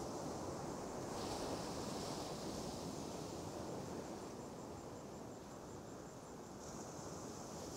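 Steady wash of surf on a sandy beach, with wind noise on the microphone.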